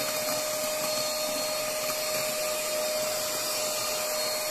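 Mini vacuum cleaner running steadily with an even, high whine while it sucks up paper snippets.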